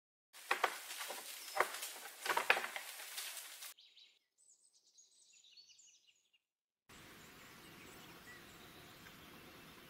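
Wolf nosing through dry leaf litter: rustling and crackling with several sharp snaps. Then faint high chirping of small birds, and near the end a steady outdoor hiss.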